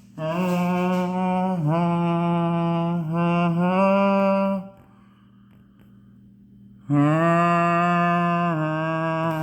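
A voice humming long, held notes with small dips in pitch, in a stretch of about four and a half seconds, a pause of about two seconds, then humming again.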